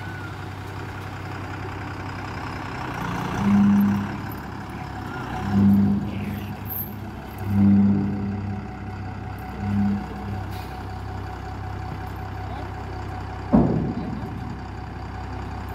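Tipper truck's diesel engine idling steadily and revved up in four short bursts about two seconds apart. One sharp thump comes near the end.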